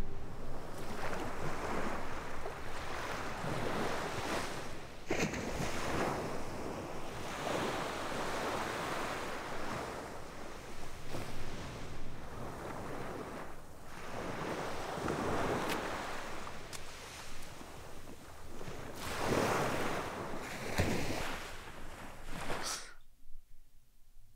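Sea waves washing onto a beach, surging and falling back every few seconds, with some wind. The sound cuts off suddenly shortly before the end.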